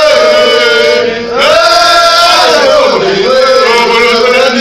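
Men singing a chant-like song, one loud lead voice holding long, slowly bending notes, with a brief break about a second in.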